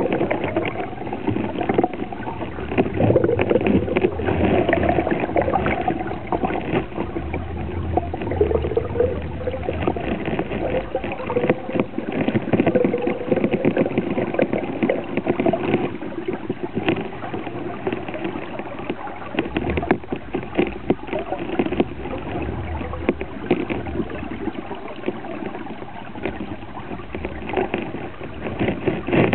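Muffled underwater noise picked up by a submerged camera: a steady rush of moving water, with many small clicks and knocks throughout and a low wavering hum.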